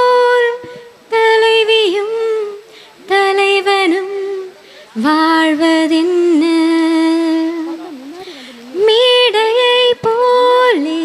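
A woman singing a Tamil song unaccompanied into a microphone, holding long notes in phrases with short breaks between them.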